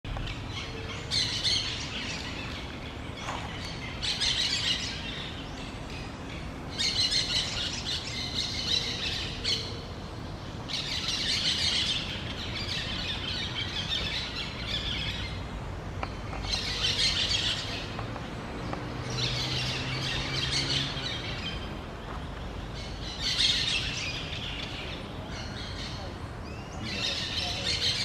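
A pair of orange-chinned parakeets calling in bouts of high, rapid chattering. There are about eight bouts, each lasting one to three seconds and starting again every few seconds.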